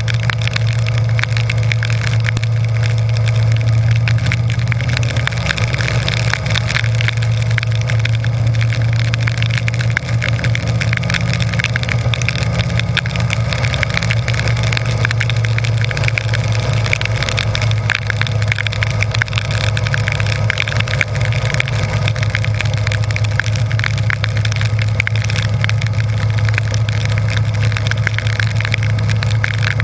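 Harley-Davidson Breakout's V-twin engine running steadily while riding at road speed, under a dense hiss of rain and wind on the microphone.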